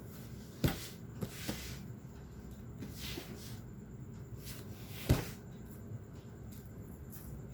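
Cardboard graphics-card retail box being handled. There is a sharp knock just under a second in, small clicks and sliding or rustling of the packaging, then a louder knock about five seconds in.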